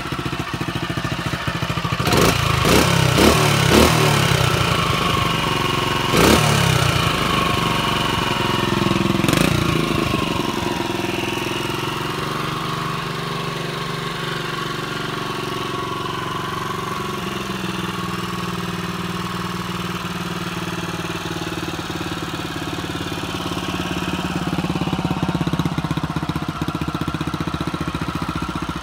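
1964 Honda CT200's small air-cooled single-cylinder four-stroke engine, warm after a test ride, running at idle. Its throttle is blipped several times in quick succession a couple of seconds in, again around six and nine seconds, and then it settles to a steady idle.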